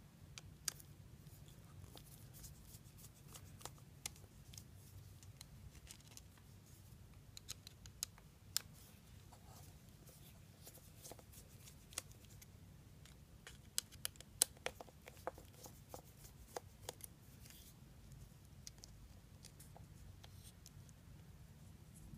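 Faint, scattered clicks and light scrapes of small screwdrivers and a metal rod against the screws, nut and plastic rotor of a Shimano spinning reel being taken apart, busiest about a third of the way in and again just past the middle.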